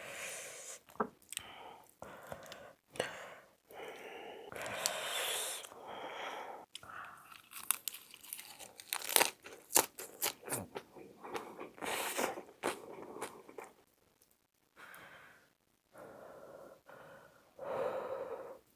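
Close-up chewing with crunching and wet mouth clicks, in irregular bursts with short pauses.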